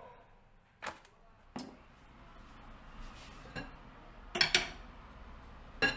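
Scattered clinks and knocks of kitchenware being handled, a pot and an aluminium foil baking tray, with a few single knocks and a louder double knock about four and a half seconds in.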